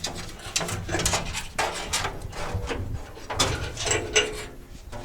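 Electrical power harness being fed through holes in a sheet-metal bill changer cabinet: irregular clicks, knocks and scraping rustles as the cable and its connector rub against the metal.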